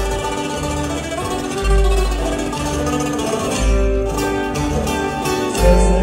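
Acoustic guitar music from two guitars, one a twelve-string, picking a melody over deep bass notes.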